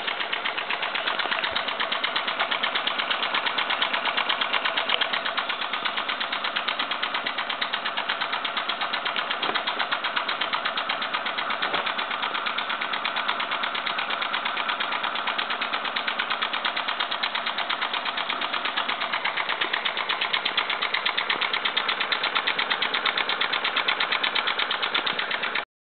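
Mamod toy stationary steam engine running in steam: its small single cylinder chuffs in a fast, even beat with a light mechanical rattle, holding a steady speed.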